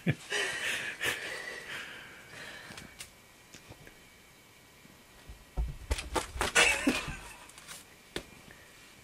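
Kitten scrambling up an upright quilted mattress: a cluster of soft thumps and claw scratching on the fabric, starting about five seconds in and lasting about two seconds. Light rustling comes before it.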